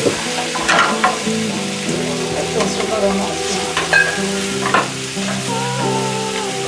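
Julienned vegetables sizzling in a frying pan with a splash of added water, stirred with a few sharp clicks and scrapes of the utensil. The water went in because the vegetables were starting to stick.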